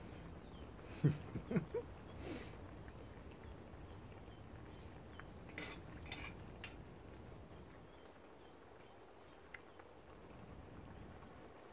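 A metal spoon clicking lightly against a cast-iron Dutch oven a few times around the middle, as broth is dipped out of the pot. A few brief low vocal sounds come about a second in, over a faint steady outdoor background.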